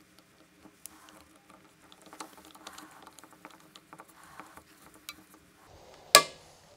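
Small screws being driven with a yellow-handled torque screwdriver, its bit and the screws giving light scratchy clicks, with one sharp, much louder click about six seconds in. The screws are being tightened to no more than 15 inch-pounds.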